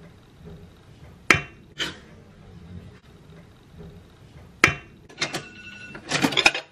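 Metal wire beaters of an electric hand mixer clicking and clinking as they are handled: single sharp taps about a second in, again shortly after, and past the middle, a short metallic ring a little after five seconds, then a quick run of clatter near the end.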